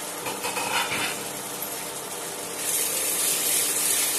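Paneer bhurji simmering and sizzling in a nonstick pan, with a spatula stirring it from about two and a half seconds in, when the hiss gets louder and brighter.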